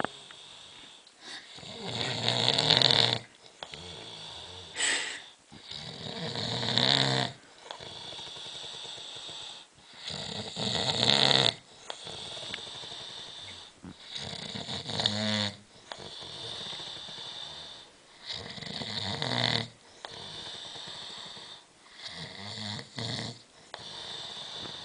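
A man snoring loudly in deep sleep: about seven heavy, rasping snores a few seconds apart, one with each breath, with quieter breathing between them.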